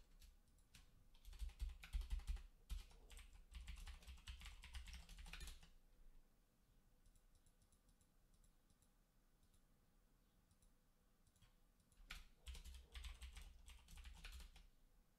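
Typing on a computer keyboard in two bursts of rapid key clicks. The first runs from about one second in to nearly six seconds, and the second starts about twelve seconds in. Only a few faint clicks fall in between.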